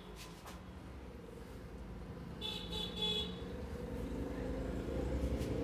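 Road traffic: a short, high-pitched vehicle horn toot about two and a half seconds in, and a motor vehicle's engine growing louder near the end.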